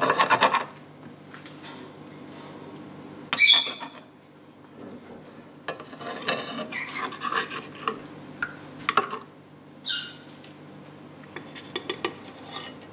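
Metal spatula scraping and tapping against a nonstick frying pan as it cuts through fried eggs, in separate strokes, the sharpest about three and a half seconds in. Near the end come a few quick clinks as an egg is slid onto a ceramic plate, all over a faint low steady hum.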